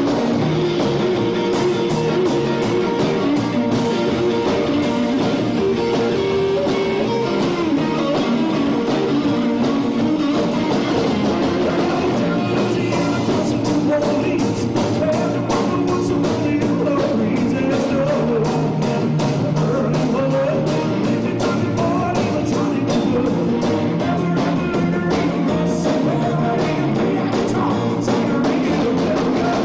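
Live rock and roll band playing, with a drum kit keeping a steady, driving beat under electric guitar.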